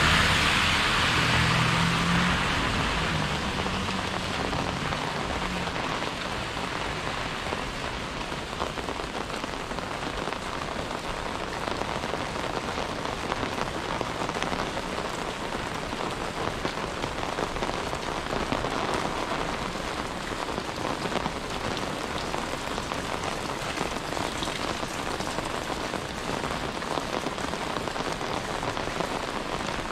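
Steady rain falling and pattering on surfaces, with many small drop ticks. Over the first few seconds a passing vehicle on the wet road fades away.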